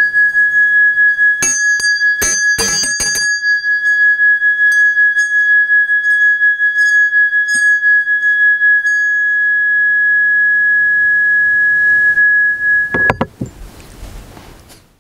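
Tibetan-style hand bell rubbed around its rim with a wooden stick, singing one steady high ring that wavers in loudness, with a few clicks of the stick against the metal in the first three seconds. The ring is cut off suddenly about thirteen seconds in.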